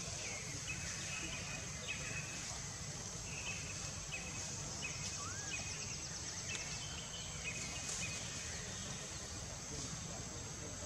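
Outdoor woodland ambience: a steady high insect drone over a low rumble, with short chirps repeating on and off and one brief rising-falling whistle about five seconds in.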